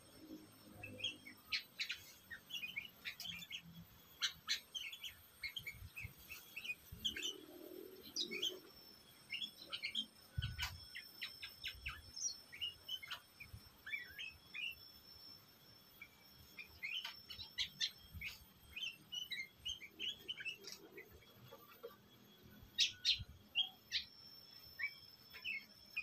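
Sooty-headed bulbuls (kutilang) calling: a string of short chirps and quick runs of whistled notes, with the loudest calls near the end.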